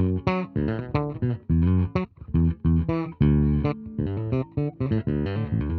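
Astra Shoreline Gold electric bass played on its bridge Righteous Sound split-coil P-bass pickup alone, through an Ampeg SVT amp simulation: a quick line of short, hard-plucked notes with a few held a little longer.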